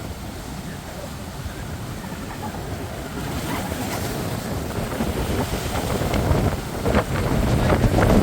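Ocean surf with wind buffeting the microphone, the wash of the water building and getting louder through the second half as a wave comes in.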